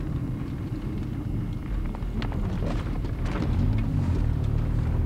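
Car engine and road rumble heard from inside the cabin while driving, a steady low drone that swells a little about three seconds in, with a few faint clicks.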